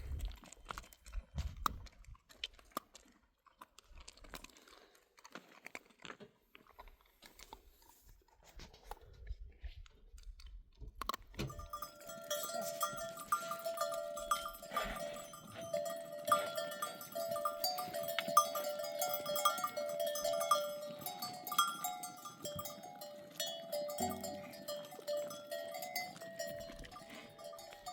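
Many neck bells on a flock of livestock clanking together continuously, starting about eleven seconds in. Before that there are only scattered faint knocks and clicks.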